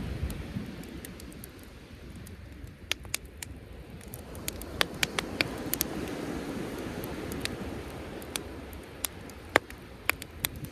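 Driftwood campfire crackling, with sharp irregular pops, the loudest about three quarters of the way through, over the low swelling rush of sea waves.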